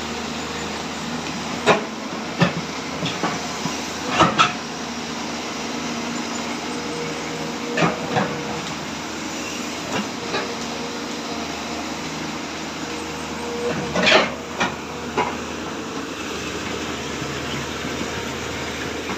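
Sany excavator running steadily, with sharp metallic clanks every few seconds, loudest and closest together around four and fourteen seconds in.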